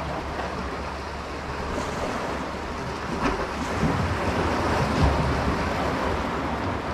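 Sea surf washing steadily, with wind buffeting the microphone and a couple of faint knocks about midway.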